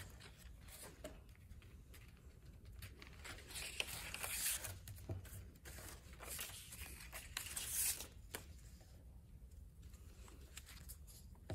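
Two paper strips being folded over each other and pressed flat on a wooden desk: faint paper rustling and scraping with small taps, loudest in two stretches around four and seven seconds in.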